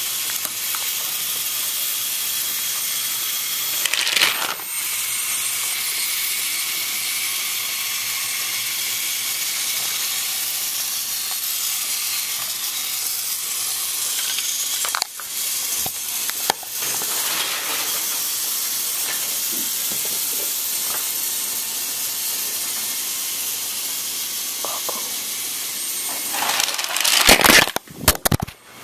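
Steady hiss of a camera microphone's own noise, with a few short knocks and rustles from the camera being handled, loudest near the end as it is swung away.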